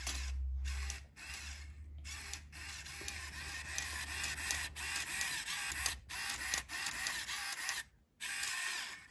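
LEGO Mindstorms EV3 GRIPP3R robot's servo motors whirring, running in short stretches with brief breaks.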